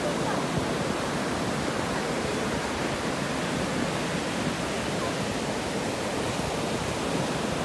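Surf breaking and washing up a sandy beach: a steady, even rush of waves.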